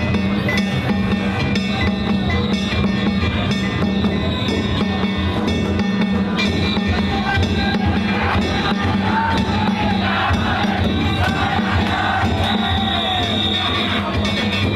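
Danjiri float music: taiko drums and kane hand gongs beaten continuously in a dense rhythm, with the voices of a crowd around it.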